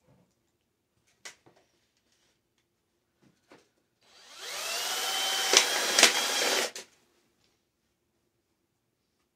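A power drill spins up with a rising whine and runs steadily for about two and a half seconds, driving a screw through the tin, with two sharp clicks near the end before it stops suddenly. Light handling ticks come before it.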